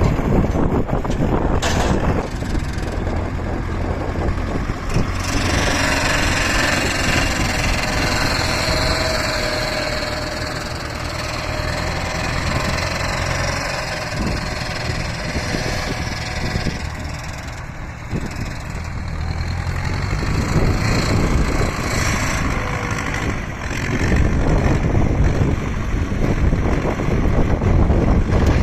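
YuMZ tractor's diesel engine running steadily, with a stacker loader mounted. For about twelve seconds in the middle a louder, higher noise with a faint steady tone rides over the engine: this is an unexplained extraneous noise whose cause the owner does not know.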